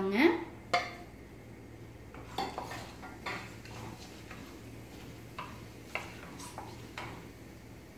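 Whole spices tipped from a steel plate into a non-stick kadai, then stirred with a spatula to fry in a little oil: a couple of clatters in the first second, then scattered taps and scrapes of the spatula against the pan.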